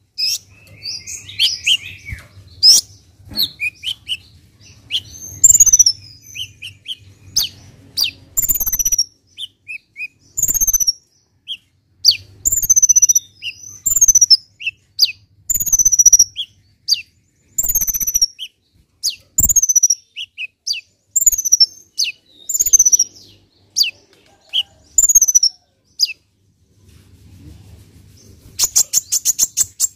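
Caged male kolibri ninja sunbird singing: a long run of sharp, high, downward-sliding notes about once a second with short chips between them, and a fast rattling trill near the end.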